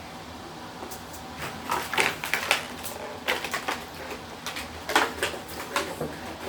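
Tableware clattering: irregular sharp clicks and knocks, starting about a second in and going on until near the end.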